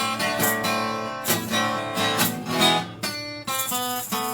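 Acoustic guitar strumming chords in a steady rhythm, about two strums a second, as instrumental accompaniment with no singing.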